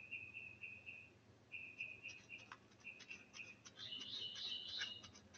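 High chirping at one pitch, repeated in short trains about a second long, building to a busier burst of chirps near the end. Faint scratchy clicks run under the middle of it, as of claws scraping dirt and dry leaves.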